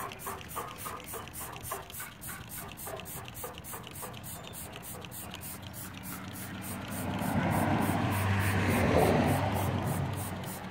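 Hand trigger spray bottle squirting cleaner in quick repeated pumps, about three or four a second. A louder rushing noise with a low hum swells for a few seconds near the end.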